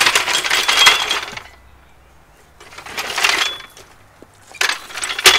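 Metal floor jack being moved into place over gravel, rattling and clinking in three bursts of scraping with short metallic rings.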